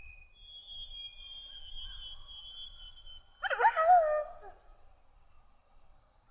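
Wolf sound effect: a thin, high-pitched whine held for about three seconds, then a short, loud, wavering cry about three and a half seconds in.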